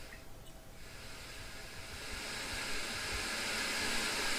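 Electronic noise from a homemade noise generator played through an audio amplifier: a steady hiss that dips just under a second in, then rises steadily in level as the generator's level potentiometer is turned up.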